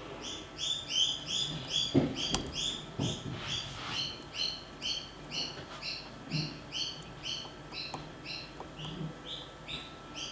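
A bird calling in a rapid, even series of short chirps, about two or three a second. A few light knocks come about two to three seconds in.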